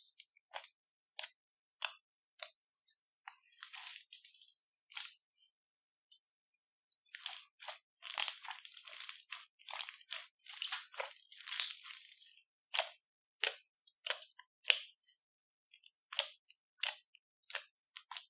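Crunchy slime being squeezed and worked by hand, giving sharp crackles and pops, scattered at first and coming in dense crackling runs about halfway through.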